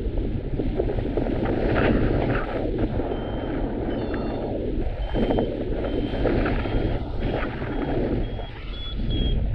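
Wind buffeting the microphone, with short high electronic beeps from a paragliding variometer starting about three seconds in and repeating roughly once a second, a little higher in pitch near the end: the vario signalling that the glider is climbing.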